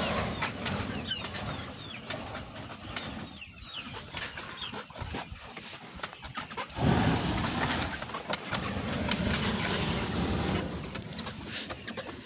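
A long-wand gas flame torch burns with a steady rush as it is played over a chicken coop's floor and litter to kill fleas. It eases off for a few seconds in the middle and comes back strongest about seven seconds in.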